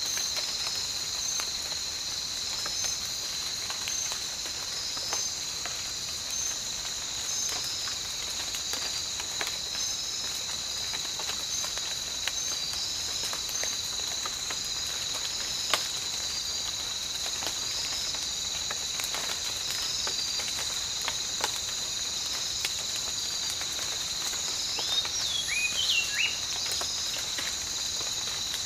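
Tropical night ambience: a steady, high-pitched, pulsing insect chorus, with scattered drops of rain ticking and dripping throughout. A few short whistled calls that bend up and down come near the end.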